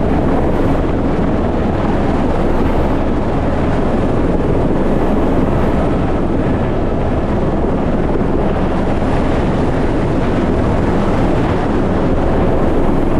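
Helicopter engine and rotor noise heard from inside the open-door cabin while hovering, loud and steady throughout.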